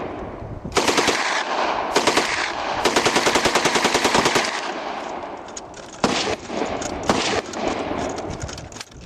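Automatic machine-gun fire in bursts: two short bursts, then a longer burst of about ten rounds a second lasting around a second and a half, followed by a few separate loud shots and some scattered shots near the end.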